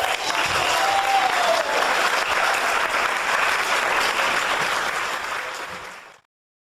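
Audience applauding, with a short rising-then-falling tone heard over it about a second in. The applause cuts off suddenly about six seconds in.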